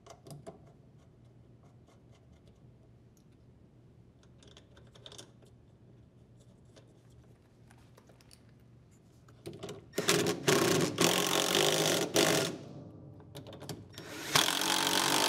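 Cordless drill-driver running in two bursts, one of about two and a half seconds and a shorter one near the end, driving the nuts down onto a washing machine's motor and transmission pulley shafts so the pulleys seat. Before the first burst there are only faint clicks of handling.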